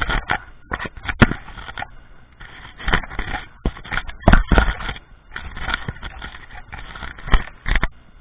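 Cast net and its lead weights clattering and scraping on loose gravel as it is thrown and gathered up by hand, close to the microphone: a string of irregular sharp knocks and rustling scrapes.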